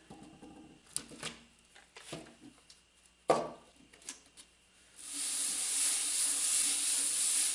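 Bridgeport milling vise's cast-iron base being lapped on 400-grit sandpaper. First a few scattered knocks and clicks as the vise is handled, then from about five seconds in a steady gritty rubbing as it is slid over the paper to knock down high spots and burrs.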